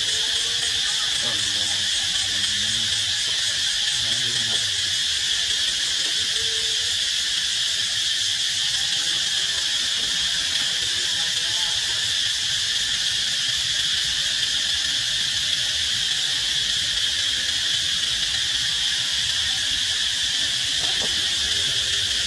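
A chorus of insects making a steady, unbroken high-pitched drone.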